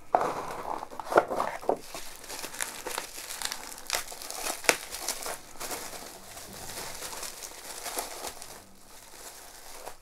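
Plastic bubble wrap crinkling and crackling as a small device is pulled out of a cardboard box and unwrapped, with many small sharp clicks; it grows quieter near the end.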